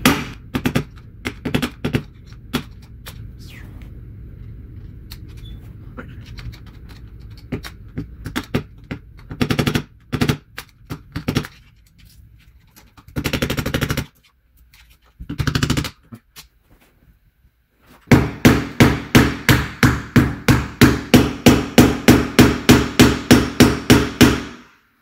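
Hammer striking the handle of a flathead screwdriver driven against the far bearing in a BMX mid bottom bracket shell, to knock the bearing out. Scattered blows give way near the end to a fast, even run of about three to four blows a second. The bearing stays put: the flathead isn't doing much.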